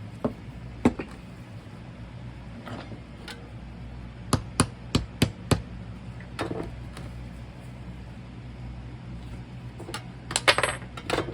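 Sharp knocks and taps of hand work on a sand casting mould: a quick run of five in the middle and a tight cluster near the end, over a steady low hum.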